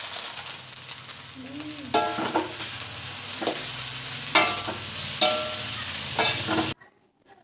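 Fried rice sizzling in a frying pan while a spatula stirs and scrapes through it, with soy sauce and seasoning being mixed in. The sound cuts off suddenly near the end.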